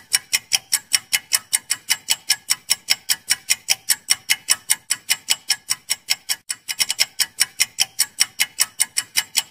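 Clock-ticking sound effect for a quiz countdown timer: fast, even ticks at about five a second, with a brief hitch about two-thirds of the way through.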